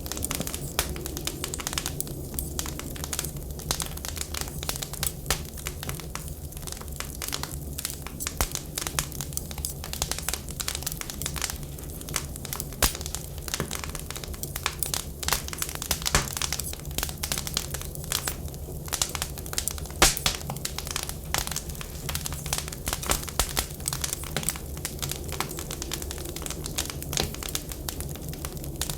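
Wood fire crackling in a fireplace stove, a dense run of irregular pops and snaps, the sharpest about 20 seconds in, over a steady low rumble.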